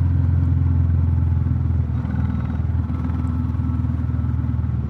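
Royal Enfield Classic 350's single-cylinder engine running steadily under way, breathing through a DNA Stage 2 performance air filter; the note drops slightly about two seconds in.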